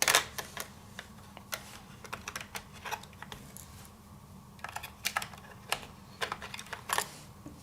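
Scattered small clicks and taps from fingers working the spring retention clips that hold a laptop's RAM module, releasing the stick. There is a sharp click right at the start and a cluster of louder clicks about five to seven seconds in.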